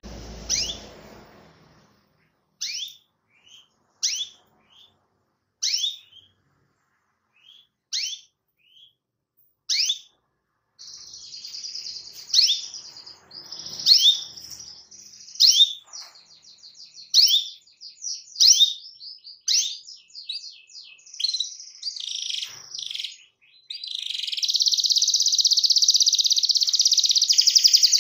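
Domestic canary giving sharp, downward-sliding 'cuit' call notes, one about every second and a half: the call a canary gives to challenge a rival. About ten seconds in it breaks into song with rapid trills. Near the end this becomes a long, fast, continuous roll.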